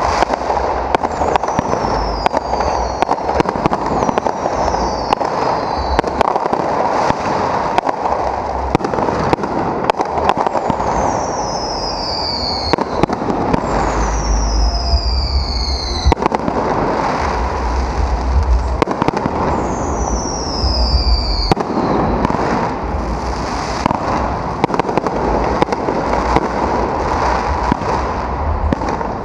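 Aerial fireworks display: shells bursting overhead with dense crackling from gold crackle effects, low booms, and several whistles that fall in pitch.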